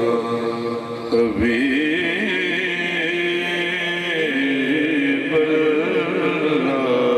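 A man singing a naat, a devotional Urdu poem in praise of the Prophet, into a microphone, holding long notes that waver and glide between pitches.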